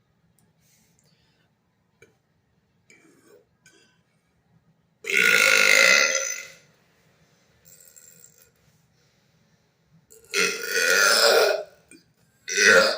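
A man's loud, drawn-out burps, forced up after gulping almond milk: two long ones of about a second and a half each, some five seconds apart, then a short one at the end.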